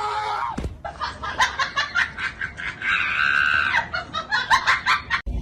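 A person laughing in rapid short bursts, with a higher held squeal about three seconds in. A held tone breaks off with a falling glide about half a second in, and the sound cuts off just before the end.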